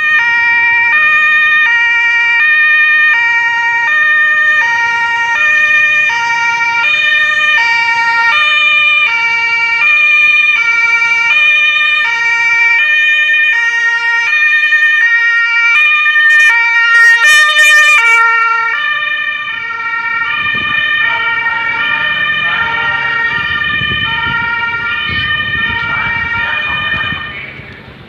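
German two-tone emergency-vehicle sirens (Martinshorn) on approaching fire engines, more than one sounding at once and alternating between a high and a low note about every 0.7 seconds. Diesel engine rumble joins about two-thirds of the way through, and the sirens fade near the end.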